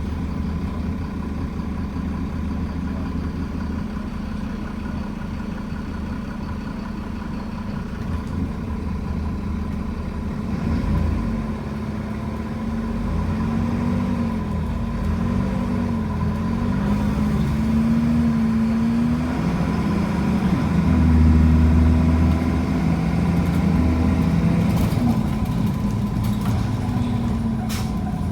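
A diesel bus engine heard from on board while the bus is moving. Its pitch rises and falls repeatedly as the bus pulls away and changes gear, over a thin steady whine. A few sharp clicks come near the end.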